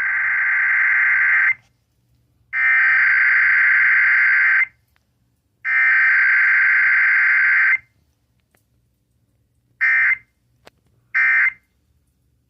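Emergency Alert System SAME data bursts of a Required Weekly Test, a harsh buzzing two-tone digital screech. The header is sent three times as bursts of about two seconds each, a second apart, then the three short end-of-message bursts follow with no attention tone between.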